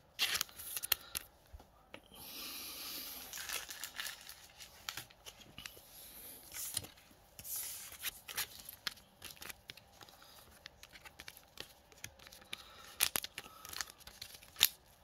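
Pokémon trading cards being handled in plastic card sleeves: crinkling and rustling of the plastic with light taps and clicks, and two longer swishes as cards are slid around.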